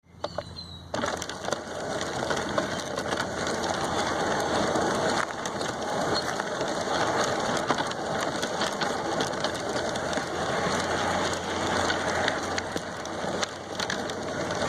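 G scale model train running along its track, with wheels rattling and clicking over the rails over a steady low motor hum, starting about a second in.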